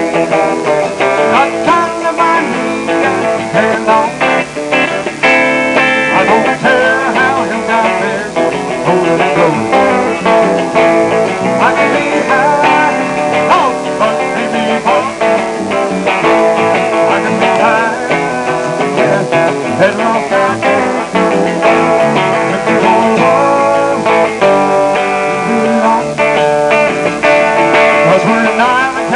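Live band playing with a strummed acoustic guitar and an electric guitar, the lead guitar bending notes now and then.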